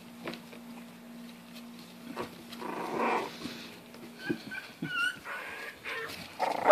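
Olde English Bulldogge puppies playing rough together: scuffling, with a few short high whimpers about halfway through and a louder puppy noise near the end.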